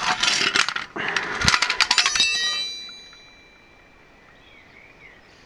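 Metal clattering and clinking as the van's car jack and its steel handle are handled on concrete, ending about two seconds in with a ringing metallic clank that dies away.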